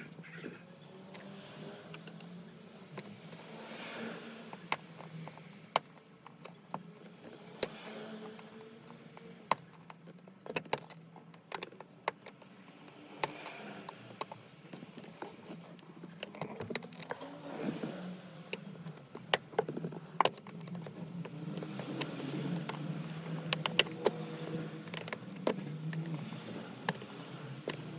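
Car cabin noise with a steady low hum that rises and falls in pitch, and many sharp, irregular clicks and rattles of loose interior plastic trim.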